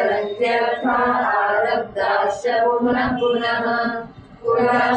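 A woman's voice chanting verses in a sung, held-note recitation, in phrases with two brief pauses.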